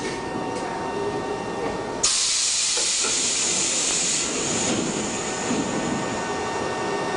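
Shin-Keisei 100-series electric train with nose-suspended traction motors running slowly, heard from the front of the car. About two seconds in, a sudden loud, steady hiss starts and holds.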